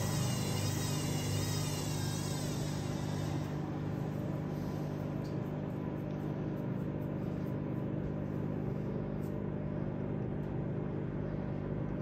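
Hoover-built Teco 9 kg front-loading washing machine running, its motor giving a steady low hum as the drum turns. A higher, wavering whine fades out about three and a half seconds in as the drum slows.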